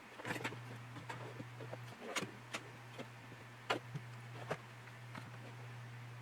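Light clicks and taps of small plastic model parts being handled on a work bench, scattered and irregular, over a steady low hum.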